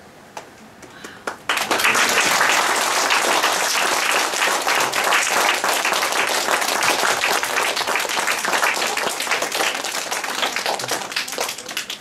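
A room of schoolchildren applauding. A few scattered claps, then full applause that starts suddenly about a second and a half in and thins out near the end.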